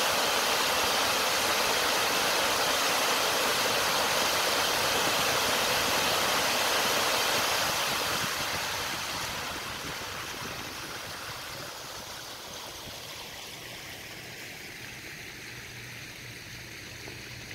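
Pumped stormwater gushing from a row of outlet pipes and splashing down a concrete-lined slope into a retention basin. The steady rush fades from about eight seconds in as the jets from the pipes weaken, leaving a quieter wash of water.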